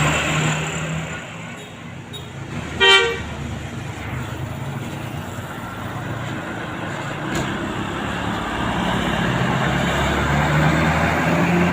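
Road traffic passing, with engines running, and one short, loud vehicle horn blast about three seconds in.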